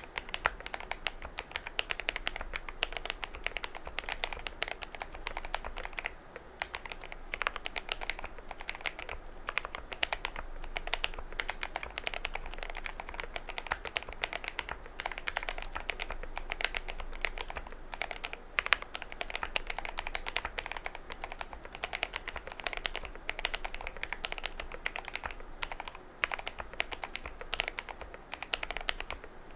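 Continuous fast typing on a GMMK Pro mechanical keyboard fitted with stock KTT Wine Red v3 linear switches, Cherry-profile PBT keycaps and a polycarbonate plate. The typing starts right at the beginning.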